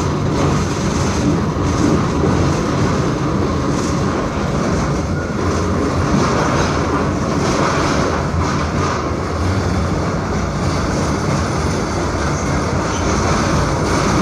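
SGP E1 tram with a C3 trailer running steadily along the track, giving a continuous rolling and rumbling noise of wheels on rails.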